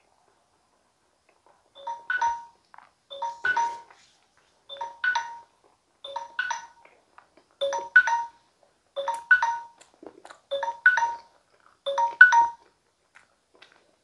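Smartphone timer alarm ringing: a short chime of a few tones repeated eight times, about once every second and a half, starting about two seconds in. It signals that the ten-minute time limit is up.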